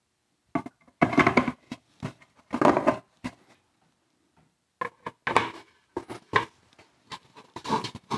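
Hollow 3D-printed plastic mold shells being handled and set down onto their plastic bases on a bench: a series of irregular knocks and short scraping clatters as the parts are fitted together.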